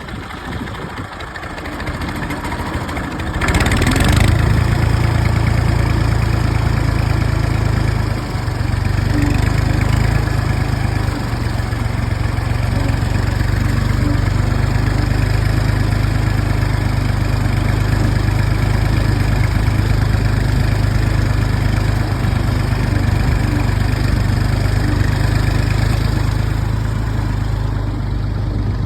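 Tractor engine running with a steady low chug. It grows louder over the first few seconds, with a brief rush of noise about three and a half seconds in, then holds steady.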